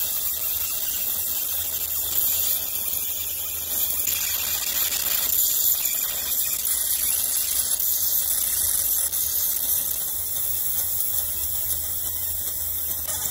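Fiber laser engraving machine marking metal: a steady high-pitched hiss from the beam ablating the surface, over a low steady hum.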